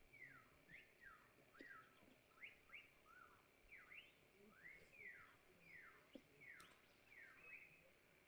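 Faint birdsong: a run of quick whistled notes, each sliding up or down in pitch, a few every second, over a faint steady high tone.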